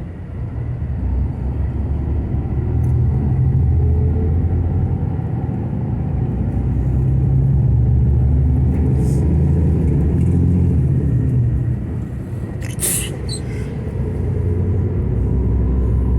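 Steady low engine and road rumble inside a moving bus, with a brief sharp burst of hiss about thirteen seconds in.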